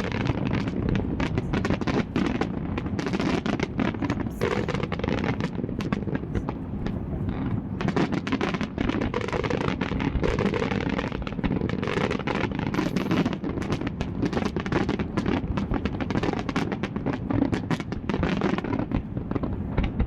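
Aerial fireworks going off in a dense, continuous barrage of many bangs and crackles close together, over a constant low rumble.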